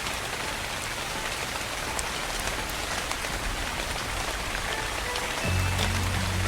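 Soft, steady rain falling, with individual drops ticking through the hiss. About five seconds in, low, sustained music notes come in underneath and the sound gets a little louder.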